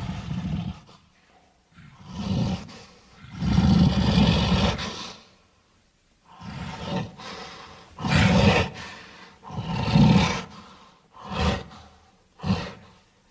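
Western lowland gorilla roaring in a series of about eight rough bursts with short pauses between. The longest and loudest comes about three and a half seconds in and lasts over a second; the later ones are shorter.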